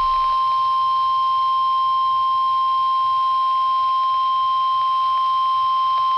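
NOAA Weather Radio 1050 Hz warning alarm tone: one steady, loud, high-pitched beep held unbroken over a faint radio hiss. It signals that a watch or warning message is about to be broadcast, here a flood watch.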